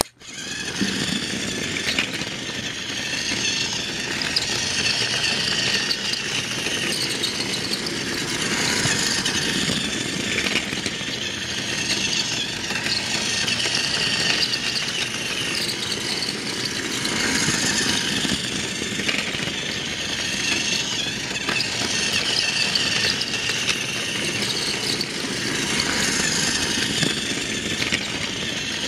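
Battery-operated toy Thomas the Tank Engine running on plastic track: its small electric motor whirring and its wheels and cars rattling, starting abruptly and growing louder and softer about every four seconds as it circles.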